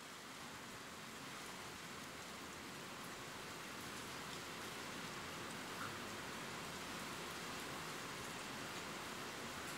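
Steady rain falling, a dense even hiss of drops, fading in and growing a little louder over the first few seconds.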